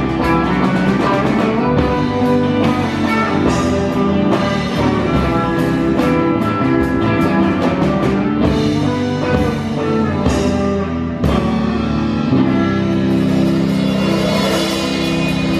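Live amplified rock band playing: electric guitars over a drum kit, ending on a long held chord in the last few seconds.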